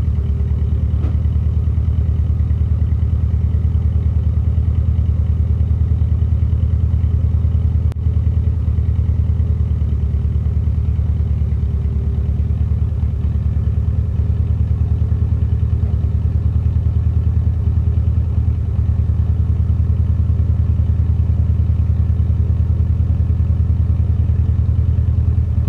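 Old 1936 Ford truck's engine running steadily at low speed as the truck is eased into position, cutting off right at the end.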